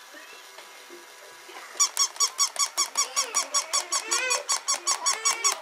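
Battery-powered plush toy dog squeaking rapidly and evenly, about five high-pitched squeaks a second, starting about two seconds in.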